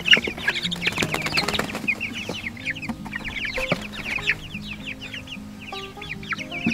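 Young Cornish Cross broiler chicks, about three weeks old, peeping constantly in quick short falling chirps as they are handled out of a cardboard box.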